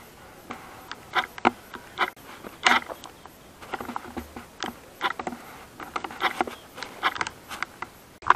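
Footsteps on a dirt and stone path: short crunching steps and scuffs, irregular but about two a second.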